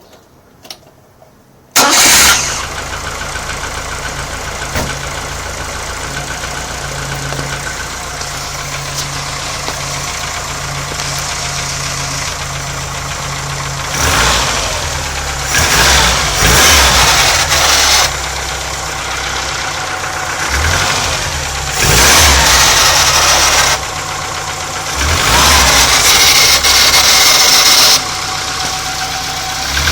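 A 1989 Nissan Sunny's engine starting up cold about two seconds in, then idling steadily, with the engine speed raised several times in the second half. The owner reports a strange gearbox noise that is present only while the engine is cold and stops when the clutch is pressed.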